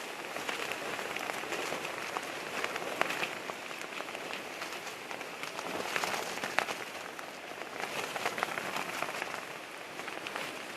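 Storm rain beating on a surface: a dense steady hiss studded with many sharp drop taps.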